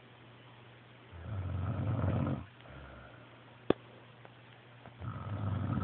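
Loud snoring, two rasping snores about four seconds apart, each lasting over a second, with a softer breath after the first. A single sharp click falls between them.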